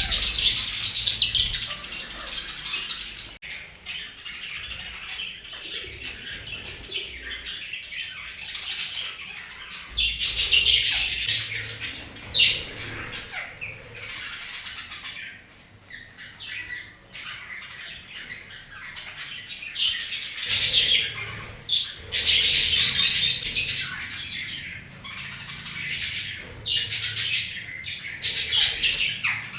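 Pet budgies chirping and chattering with a parrot's squawks, rising into loud bouts of a few seconds several times between stretches of quieter chatter.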